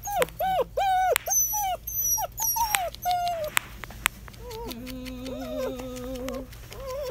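German Shepherd puppies, six weeks old, yipping in play: a quick run of short, high yips in the first few seconds, then a longer wavering cry lasting about two seconds.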